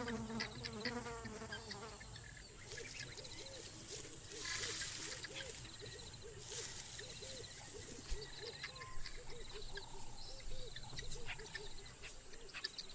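Bush ambience of insects trilling and chirping, with a short low call repeated about twice a second through the middle.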